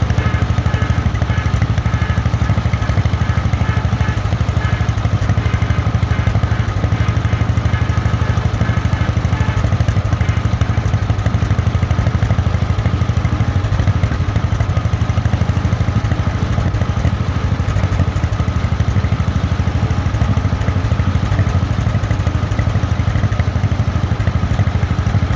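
1948 John Deere Model M tractor's two-cylinder engine running steadily under way on the road, its exhaust beats coming in a fast, even pulse.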